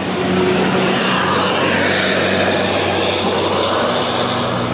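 A bus driving past close by: a loud, steady rush of engine and air noise.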